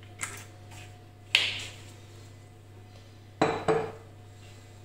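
Kitchen clatter as an oil bottle is set down and a metal baking pan is handled on the table: a small click, a sharp ringing clink about a second in, then two knocks in quick succession about three and a half seconds in.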